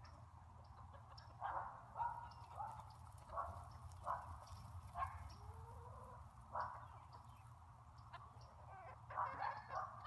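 A flock of chickens clucking and squawking in repeated short calls, irregularly spaced and busiest near the end, over a steady low rumble.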